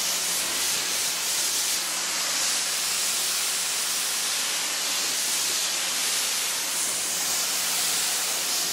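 Pressure washer blasting a jet of water against a foam-covered car's side: a loud, steady hiss of spray with a faint steady low hum underneath.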